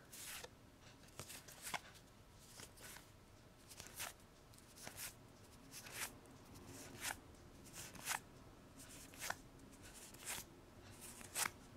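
A pack of Magic: The Gathering trading cards being flipped through by hand, each card slid from the front of the stack to the back with a short, quiet flick, about once a second.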